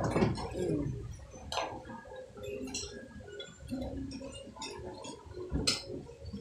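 Knife and fork clinking and scraping against a plate while cutting a pork chop: scattered light clinks, the sharpest one a little before the end.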